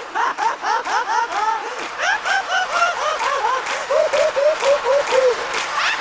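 Recorded laugh track: one person's high-pitched laughter in a long unbroken run of quick ha-ha-ha pulses, about five a second.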